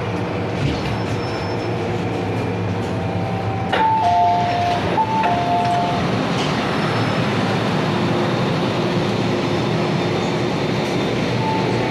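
MTR M-Train and station platform ambience: a steady low hum of the train and station. About four seconds in there is a knock, followed by a two-note electronic chime sounding twice.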